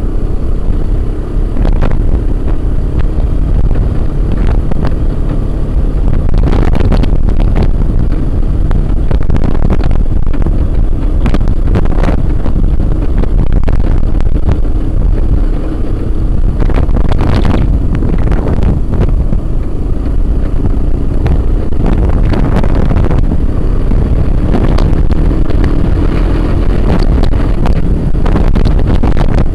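Honda Big Red ATV's engine running under way over rough ground, its pitch dipping and rising a few times with the throttle. Short knocks and rattles are heard as the machine jolts over the ruts, with some wind on the microphone.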